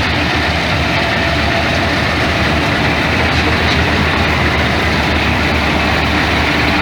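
Combine harvester running steadily: a continuous low engine drone under a dense, even mechanical noise.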